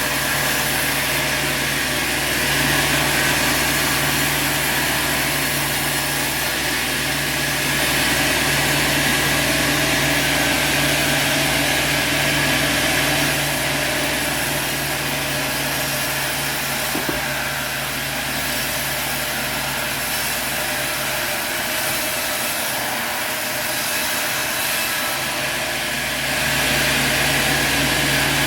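Sawmill running: a steady engine drone under the high hiss of the saw cutting through a log. It eases slightly for several seconds past the middle, then comes back up near the end.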